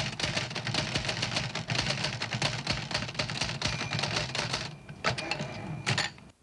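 Typewriter keys clacking in rapid strikes, used as a sound effect for an on-screen caption typing itself out. The typing breaks off briefly near the end, resumes with a few more strikes, then cuts off suddenly.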